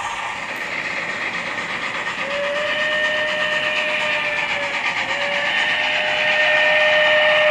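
Digitally sampled steam locomotive whistle from an HO model's Loksound 5 sound decoder, played through its small speakers. A long blast starts about two seconds in, breaks briefly, and sounds again to the end over a steady rushing running noise, growing louder near the end.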